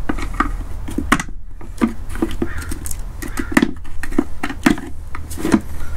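Flathead screwdriver prying and bending open the aluminum crimp tabs on a VW Mk4 manual-transmission shift box housing: an irregular run of sharp metallic clicks and scrapes.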